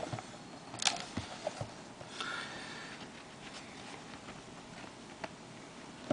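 Quiet handling of a trading card box and pack as it is opened. There is a sharp click about a second in, a brief scratchy rustle a little later, and a few faint ticks.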